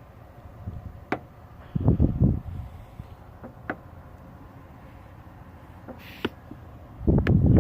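Scattered sharp metallic clicks from tools and engine parts being handled, with two short low thumping bursts of handling noise, one about two seconds in and one near the end.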